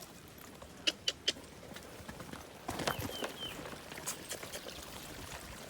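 Mule's hooves stepping: scattered sharp clops and knocks, three close together about a second in and more from the middle on, with a few short high chirps near the middle.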